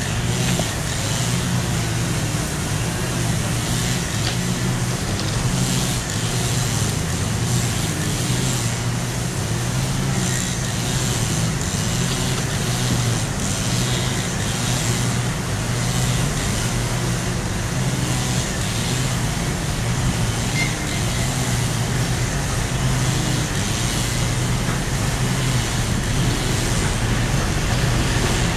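Steady low rumble of road traffic, with the diesel engine of an approaching TEP70 passenger locomotive getting slightly louder near the end.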